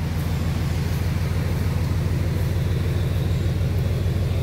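Dodge Ram 3500's Cummins turbo-diesel idling steadily, an even low rumble.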